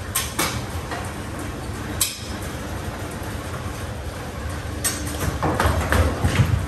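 Brunswick automatic pinsetter cycling: a steady low motor rumble with sharp metal clanks from the sweep and deck mechanism, thickening into a run of clatter near the end.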